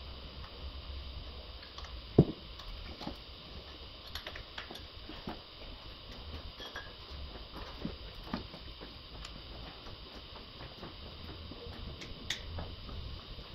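Scattered small clicks and taps of hands and parts being handled in a car's engine bay, with one sharper knock about two seconds in, over a steady low hum.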